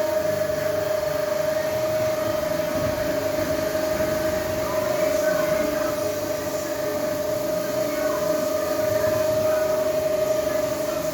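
Floor-cleaning machine running steadily, its motor giving a constant whine over a continuous rushing noise.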